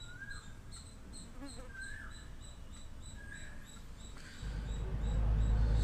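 Faint, even insect chirping, about four high chirps a second, with a few short bird chirps over it. About four and a half seconds in, a low rumble rises and grows louder.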